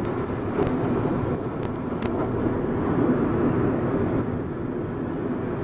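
Steady road and engine noise heard inside a moving car, with a few light clicks in the first couple of seconds.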